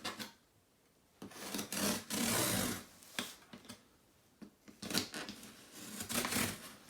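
Cardboard box being opened by hand: a few bursts of scraping and tearing of tape and cardboard, with scattered clicks between short quiet gaps.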